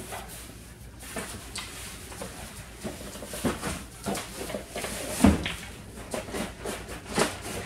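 Cardboard shipping carton being opened and handled: irregular scraping and rustling of the flaps, with a dull thump about five seconds in as the box is tipped onto its side on the countertop.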